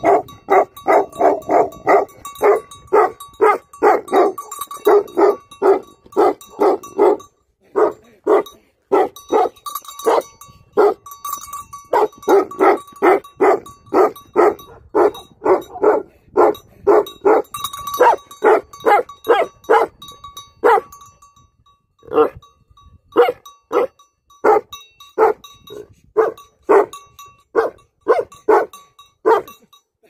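Livestock guardian dog barking in a long, steady run of repeated barks, about two a second. A little over twenty seconds in it pauses briefly, then carries on barking more sparsely.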